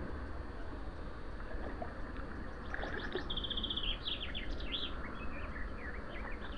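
A songbird singing in several short chirping phrases, including a quick trill, starting about halfway in, over a low steady rumble.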